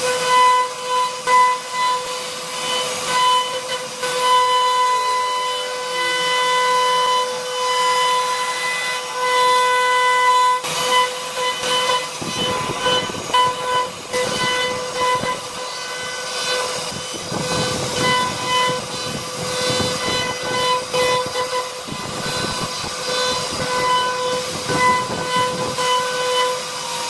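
CNC router spindle running with a steady high-pitched whine while its bit carves a relief pattern into a wooden panel, over the hiss of the cut. From about twelve seconds in, a rougher, lower cutting noise comes and goes as the bit works deeper into the wood.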